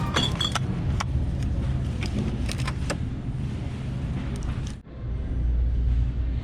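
Semi truck running on the road, heard from inside the cab as a steady low rumble of engine and road noise. A few light clicks come in the first three seconds, and the sound drops out briefly just before five seconds in.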